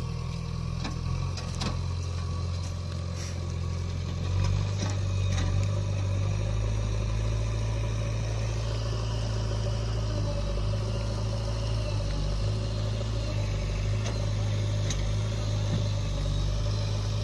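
Heavy diesel engine running steadily at low speed, getting louder about four seconds in, with a few short knocks and clanks over it.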